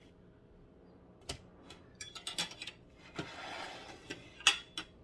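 Metal fork clicking and scraping while a piece of fried fish is lifted off a paper towel and set on a plastic plate. A brief rustle comes about three seconds in, and a sharp click of the fork on the plate follows near the end.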